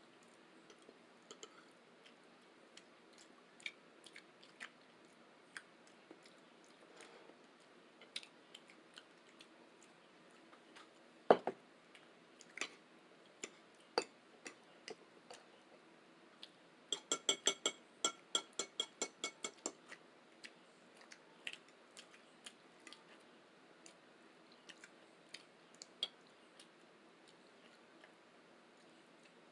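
Close-up eating sounds: scattered chewing and mouth clicks, with a sharp knock about eleven seconds in. Later comes a quick run of about a dozen ringing taps on a plate, several a second.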